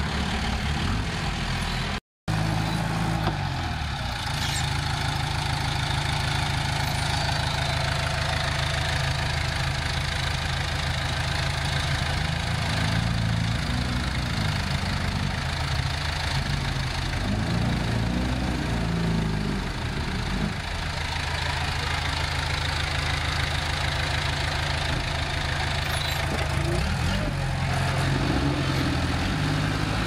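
Komatsu D20A bulldozer's diesel engine running steadily at close range, its pitch wavering a little midway. The sound cuts out for a moment about two seconds in.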